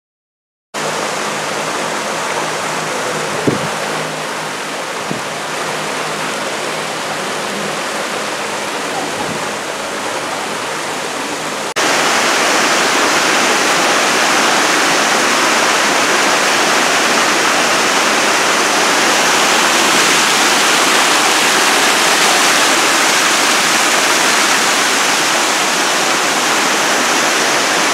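Steady rush of water from a small artificial waterfall splashing over rockwork into a pool. About twelve seconds in it becomes louder and hissier, with one faint knock at about three and a half seconds.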